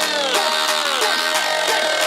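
Electronic background music with a steady beat and repeated falling synth sweeps.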